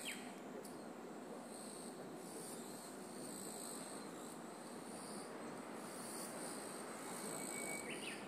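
Summer insects singing in a steady, pulsing high drone. Under it is a low steady hum from the stopped DE10 diesel-hydraulic locomotive idling at the platform.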